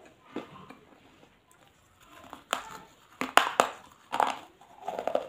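A person biting and chewing a crisp, crunchy snack held in the fingers: a few faint crunches at first, then several loud, sharp crunches in the second half.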